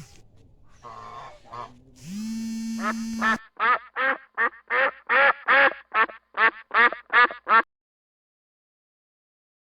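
A steady buzzing hum lasting about a second and a half, then a domestic duck quacking in a quick run of about a dozen quacks, roughly three a second, which cuts off suddenly.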